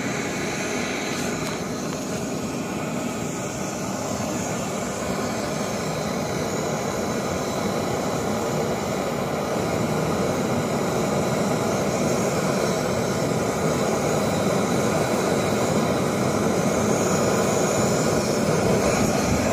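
MSR Pocket Rocket canister stove burning isobutane-propane gas with a steady roaring hiss under a stainless pot of water that is beginning to form small bubbles short of the boil. The roar grows slowly louder.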